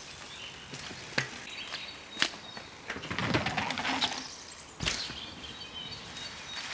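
Mountain bike ridden hard down a dirt trail: sharp rattling clicks from the bike, then tyres scrubbing through dry leaves and dirt, and one heavy thud about five seconds in as it lands off a jump. Birds chirp faintly throughout.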